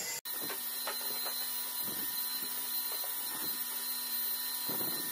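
A few light wooden knocks and taps as loose beech flooring planks are carried, set down and fitted together on the floor, over a steady mechanical hum.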